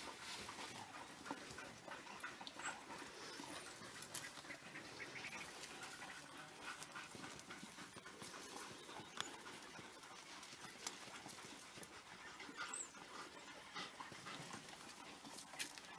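African wild dogs feeding on an impala carcass: faint panting with scattered short clicks of tearing and crunching.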